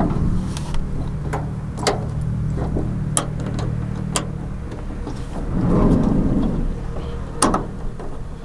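Sharp clicks and knocks of a door-closer part being handled and fitted into the van's sliding-door mechanism, over a steady low hum. A rubbing, rustling swell comes about six seconds in.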